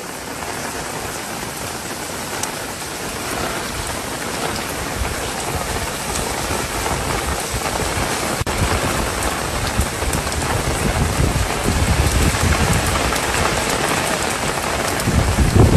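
Heavy rain falling steadily, a dense, even hiss of drops that grows slowly louder, with low rumbles toward the end.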